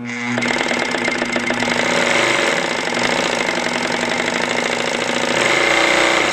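Consew 206RBL-25 walking-foot industrial sewing machine running steadily under its servo motor, with a rapid, even needle-and-feed clatter that gets a little louder near the end.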